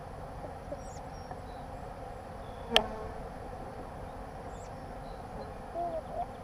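A swarm of honey bees flying around an opened hive, making a steady buzzing hum, with a single bee droning close past near the end. About three seconds in comes a single sharp click, the loudest sound.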